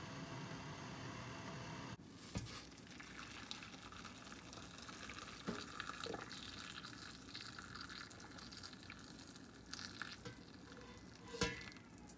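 A steady hum for about two seconds, cutting off sharply. Then a faint crackling hiss with a few light clicks of a spoon and utensils against a glass bowl of bún bò Huế ingredients, and a sharper click near the end as broth starts to be poured from a metal pot.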